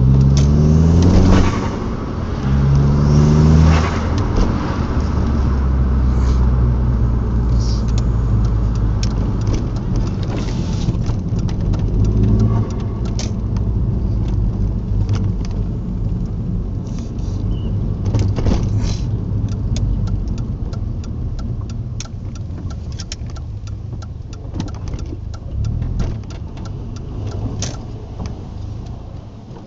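2003 VW Golf GTI's 1.8-litre turbocharged four-cylinder engine revved three times in the first four seconds, then running steadily at idle. From about ten seconds in, light clicks and jingles come over the engine sound, which grows a little quieter toward the end.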